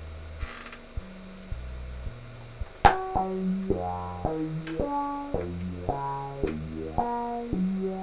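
PAiA modular synthesizer playing a repeating step-sequenced line of short low notes, about two a second. A sharp click comes nearly three seconds in as a patch cable goes in. After it the sequence is louder and brighter, with higher notes sounding over the bass.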